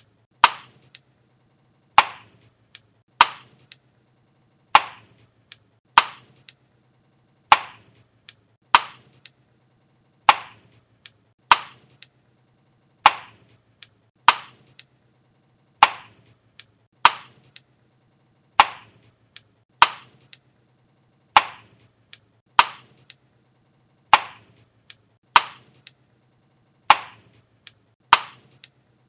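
Chewing gum snapping and cracking in the mouth: a sharp, loud snap about every second and a half, with fainter clicks between, over a faint steady low hum.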